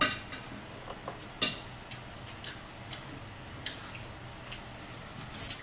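Eating sounds: a bite of smoked sausage taken off a fork, then chewing with scattered sharp clicks and taps of a fork on a plate. The loudest click comes right at the start, and a few follow about a second apart.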